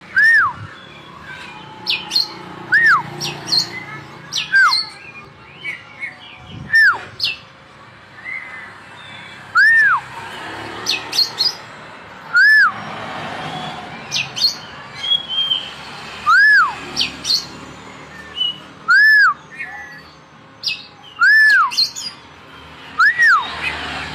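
Oriental magpie-robin (kacer) singing: loud clear whistles that rise and fall in an arch, repeated every two to three seconds, with bursts of short high chirps between them.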